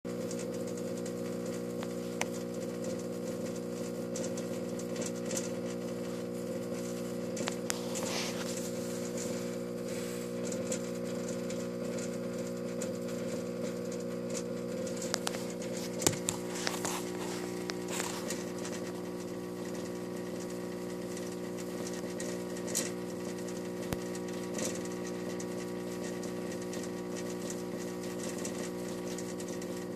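Fluorescent light fixture running a Sylvania F96T12 tube at end of life, humming steadily, with a few sharp clicks now and then.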